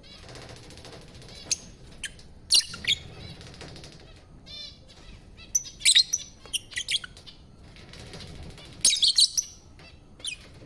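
Pet lovebirds chirping and chattering: shrill, sharp calls in three loud clusters, about two and a half, six and nine seconds in, with softer rapid chatter between.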